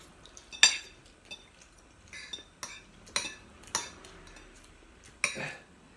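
Cutlery clinking against ceramic plates during a meal: about half a dozen separate sharp clinks, the loudest about half a second in.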